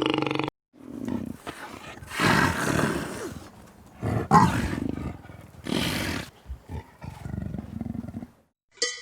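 A large animal giving several loud, rough calls of about a second each, with quieter breathing-like sounds between them. A steady pitched sound from the previous clip cuts off about half a second in.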